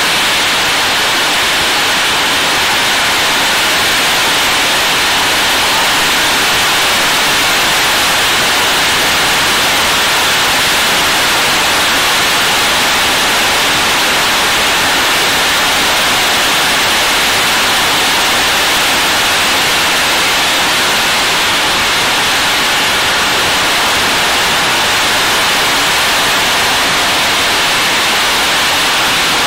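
Heavy rain pouring down, a loud steady hiss without a break.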